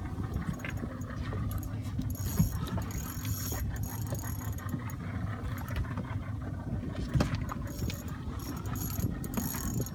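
Fishing reel working under heavy load as a hooked shark is fought toward the boat, its gears clicking and whirring, over a steady low rumble.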